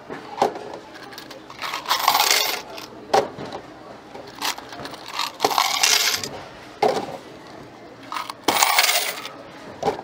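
Goods and coins being handled at a store checkout counter: a run of sharp clinks and clatters, one every second or so, with short rustling scrapes between them.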